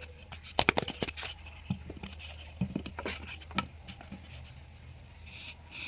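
Irregular sharp clicks and light taps of small objects being handled, clustered over the first few seconds, over a steady low hum.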